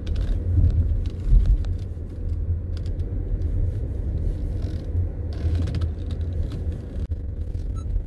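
A car driving along a road: a steady low rumble of the moving vehicle.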